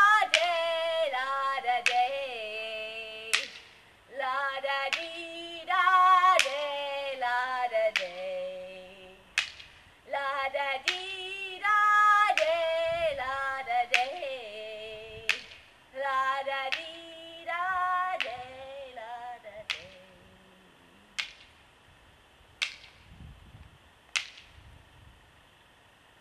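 A woman singing unaccompanied in phrases with vibrato, punctuated by sharp slaps spaced a second or so apart. The singing stops about two-thirds of the way through, and a few more slaps follow, about a second and a half apart and growing fainter.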